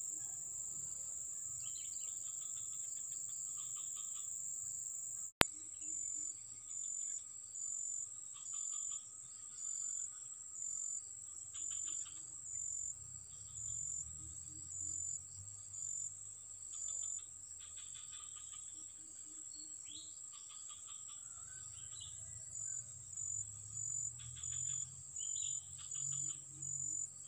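Insects, crickets or cicadas, buzzing in a steady high-pitched drone. After a sharp click about five seconds in, it turns into regular chirps about once a second. Short bird twitters come and go over it.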